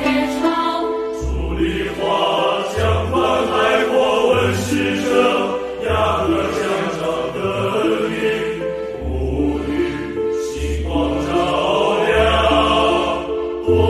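A choir sings a slow, solemn song in Chinese over instrumental accompaniment, with sustained deep bass notes changing about every second and a half.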